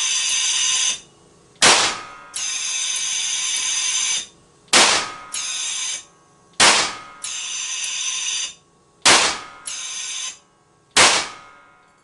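Propane-oxygen gas gun, built as a mock M2 machine gun, firing five single loud bangs two to three seconds apart instead of rapid fire: the propane-oxygen pressures are set too high, feeding too much gas. Between the bangs a steady buzzing tone with many overtones sounds and stops before each shot.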